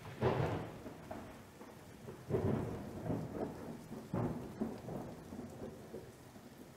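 A low, rushing rumble that swells up three times, about two seconds apart, and slowly fades.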